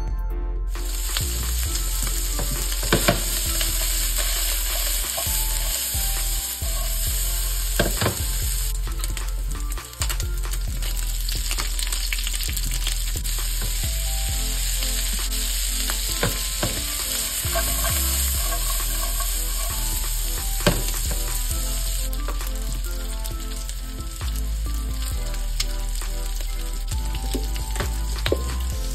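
Diced roasted pork frying in a hot pan, a steady loud sizzle as the fat renders, with scattered knocks and scrapes of the pieces being stirred.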